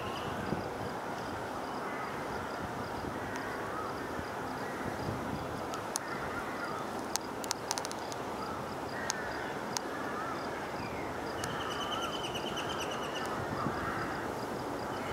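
Several birds calling and chattering, short whistled and warbling notes over a steady outdoor din, with a buzzy trill towards the end and a few sharp clicks near the middle.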